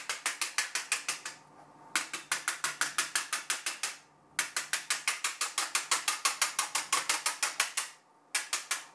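Rapid, regular mechanical clicks like a ratchet, about ten a second, in runs of one to three and a half seconds with short pauses between them.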